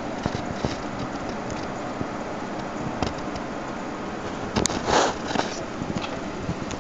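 Small electric motor running from a six-step inverter, giving a steady mechanical drone with a few light clicks. About five seconds in, a brief louder scraping rustle.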